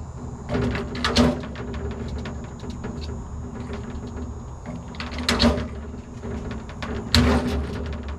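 Aluminum tool boxes being handled and worked on: three short bursts of clattering and knocking, about a second in, around five seconds and around seven seconds, over a steady low hum.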